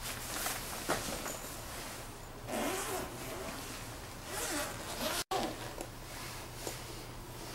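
Zipper on a black nylon laptop bag being pulled open in a couple of long pulls, with shorter zipper rasps between.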